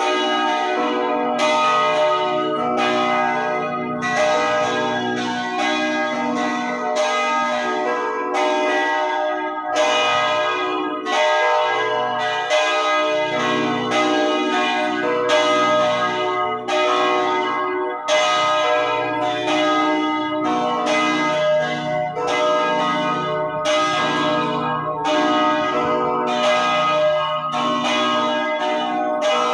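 Church bells ringing a continuous peal: several bells of different pitch struck in steady succession, their tones ringing on and overlapping.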